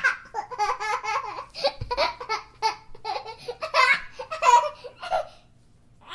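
A young child laughing in a long run of short bursts, with a brief pause near the end before another laugh starts.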